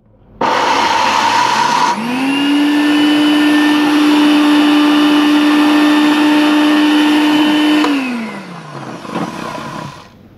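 Small electric blender grinding hot roasted peanuts with garlic, candlenuts and chilies. The motor starts with a loud grinding rush, spins up to a steady whine over about two seconds and runs for about six seconds, then winds down falling in pitch as it is switched off.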